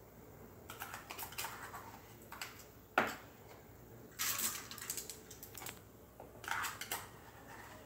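Plastic bottle and cut-bottle funnel handled as wet dyed rice is worked into the bottle: scattered crinkles, rustles and small clicks, with one sharp click about three seconds in.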